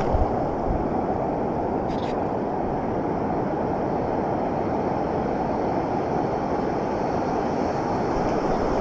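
Steady, muffled rush of ocean surf and shallow water washing around, with no breaks or distinct events.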